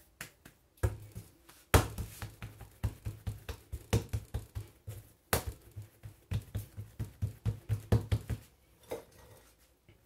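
Hands patting and pressing a ball of brioche dough flat against a kitchen worktop: a quick run of dull thumps, several a second, with a couple of sharper slaps among them.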